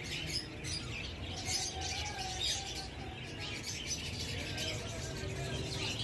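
Alexandrine parakeet chicks chirping, a busy run of many short calls.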